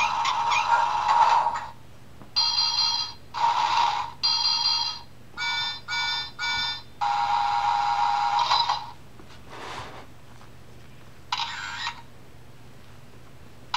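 The toy camera sound module of a Thomas & Friends play-a-sound book plays electronic sounds as its buttons are pressed. A tune cuts off about two seconds in. Then come a run of short clips of steady electronic tones, three short beeps, another snatch of music, and one short sound near the end, with pauses between them.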